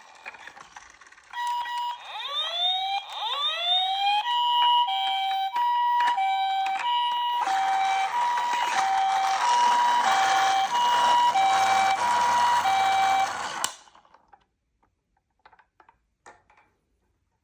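Electronic siren of a toy emergency vehicle: a few quick rising sweeps, then a steady two-tone hi-lo alternation that cuts off suddenly near the end, followed by a few faint clicks.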